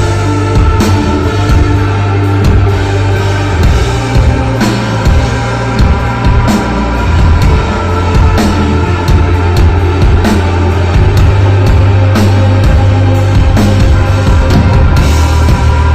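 Rock band playing loud instrumental desert rock live: a heavy, sustained bass line under held electric guitar notes, with drums and frequent cymbal hits.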